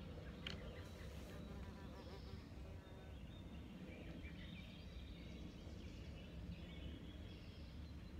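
Faint outdoor background: a steady low rumble with scattered faint high chirps.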